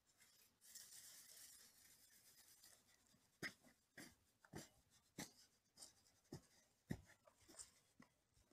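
Straw hand brush sweeping a wooden hive bottom board, a dry scratching for about two seconds, followed by a series of light knocks about two a second.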